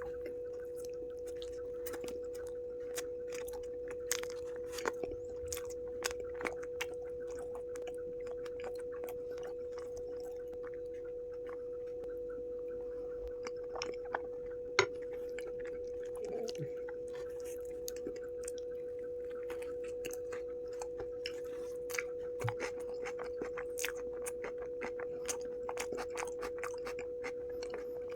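Close-up chewing and biting of an aloo tikki cheese burger: irregular wet clicks and mouth sounds, with the sharpest bite about fifteen seconds in. A steady humming tone runs underneath.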